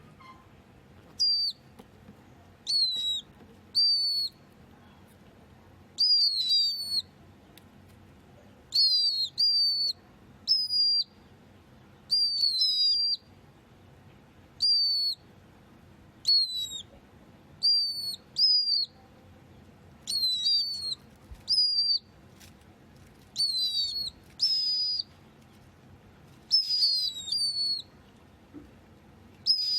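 Pet cage bird, species unidentified, repeatedly calling with short, high whistled chirps. Each note rises then drops sharply, and they come singly or in quick pairs and threes every second or two.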